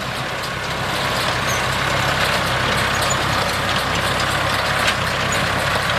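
Tractor engine running steadily while working a hay baler: an even low drone under a steady mechanical noise.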